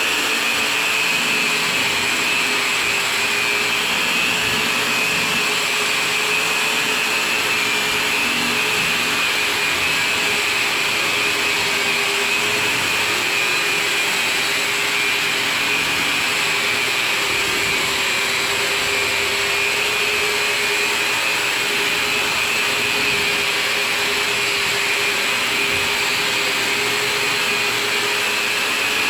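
Electric drywall sander with 240-grit paper running steadily against a drywall ceiling: a constant motor whine over an even hiss, with no change in speed.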